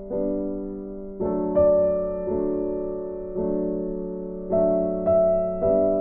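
Slow, gentle background music on a piano-like keyboard: chords struck about once a second, each left to ring and fade.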